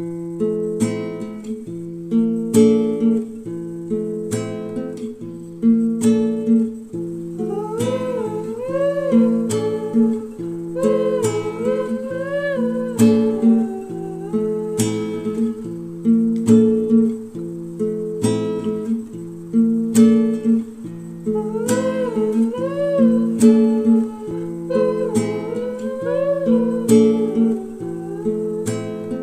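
Background music: acoustic guitar strumming steady chords, with a gliding lead melody coming in about seven seconds in.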